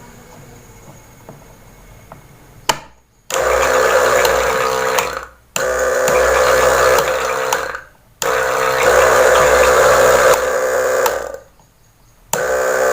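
Battery sprayer's small electric pump switched on and off, running in four steady humming bursts of two to three seconds with short pauses between, after a sharp click about two and a half seconds in. The pump runs again on the newly fitted switch.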